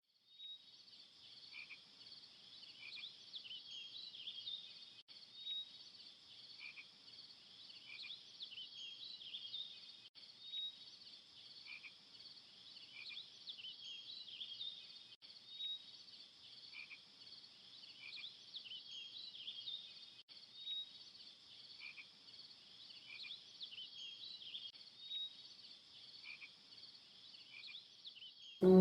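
A faint, high chorus of calling frogs and insects, the same few-second stretch repeating about every five seconds like a looped nature recording.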